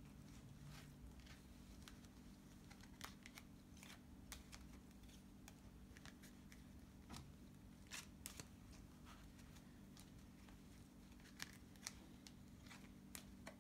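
Near silence with faint, scattered clicks and light rustles of trading cards being handled and sorted.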